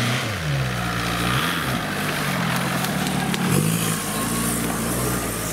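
Modified off-road 4x4's engine revving up and down as it works through the trial course, its pitch rising and falling several times.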